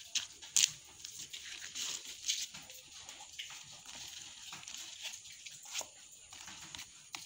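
A wilted banana leaf crinkling and rustling as it is folded and rolled by hand, with a few sharp crackles, the loudest about half a second in and again near the end.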